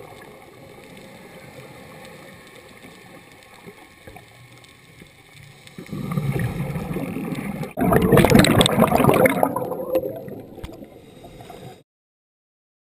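Scuba diver's exhaled bubbles from an open-circuit regulator, heard underwater: a low rush starts about six seconds in, then a louder burst of bubbling for about two seconds that fades and cuts off suddenly near the end.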